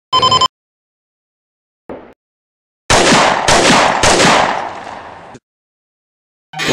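Gunshot sound effect: three shots about half a second apart, each with a long fading tail, after a short electronic beep near the start.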